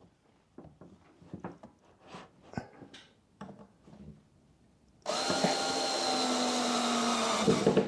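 Electric drill running steadily for nearly three seconds, its pitch sagging slightly just before it stops abruptly, after a few light knocks and taps.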